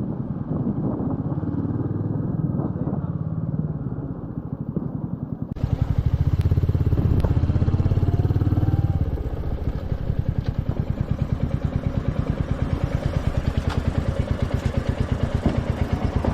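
Royal Enfield Meteor 350's single-cylinder engine running with an even, rapid exhaust beat. The sound changes abruptly about five seconds in and is louder for a few seconds before settling back to a steady beat.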